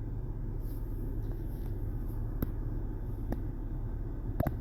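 Steady low background rumble with a few faint, short clicks.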